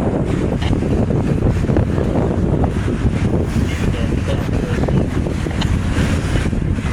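Wind buffeting the microphone, with a steady low rumble underneath.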